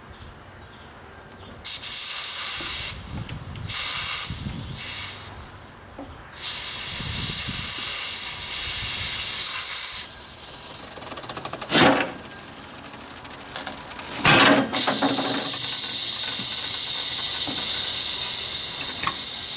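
Compressed air hissing out of a truck tire's valve stem in several short bursts, then a long steady release that slowly fades as the tire deflates. Two brief knocks come between the bursts and the long release.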